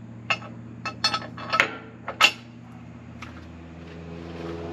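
A handful of sharp metal clinks and taps from tools and bolts being handled, over a steady low hum. Near the end a louder, higher drone comes in.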